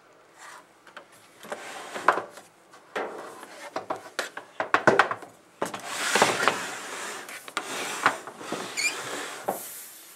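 A Liebert GXT3 UPS tower being turned around on a wooden workbench: its case scraping and knocking against the bench top in a series of irregular scrapes with a few sharper knocks.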